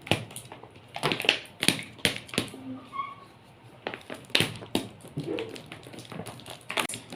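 Irregular taps and clicks of a plastic bottle of honey being handled, with a brief faint high tone about three seconds in.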